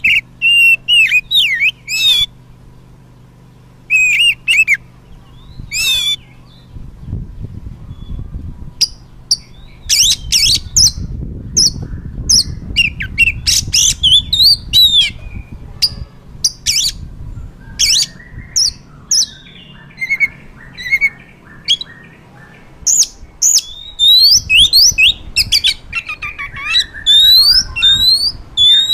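Oriental magpie-robin singing loudly: varied phrases of short clear whistles and quick rising sweeps. Runs of harsh, scratchy notes come in about two-thirds of the way through and again near the end.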